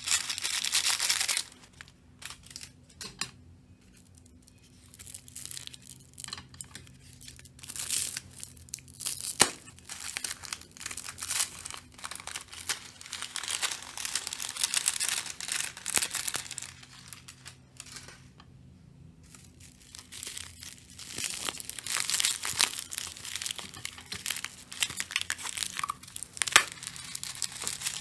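Slime being squeezed and stretched by hand, with dense crackling, clicking and popping. The crackling pauses to near quiet twice and builds up again.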